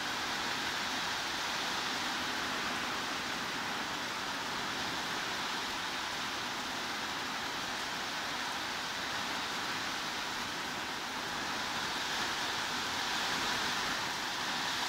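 Steady heavy rain: an even, unbroken hiss with no single drops standing out.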